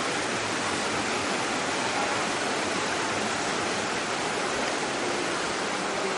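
Whitewater river rapids rushing, a steady even hiss of fast water with no breaks.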